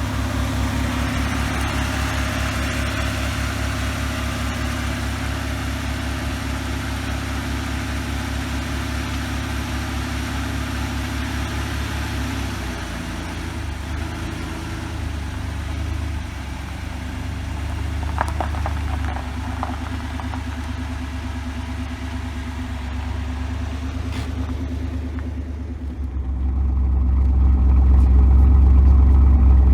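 1984 Pontiac Trans Am V8 running at idle soon after a hard first start in years, with a steady low pulsing rumble. The idle drops about halfway through, there are a few brief rattles a little later, and the low rumble grows much louder for the last few seconds.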